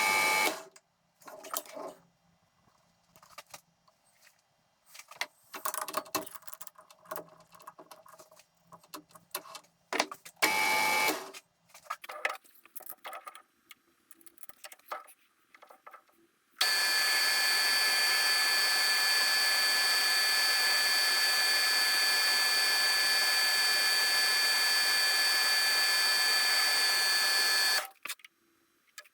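Metal lathe machining: several seconds of scattered clicks and handling knocks, with a brief spell of the machine running in the middle, then the lathe runs steadily with a high whine for about eleven seconds and stops near the end.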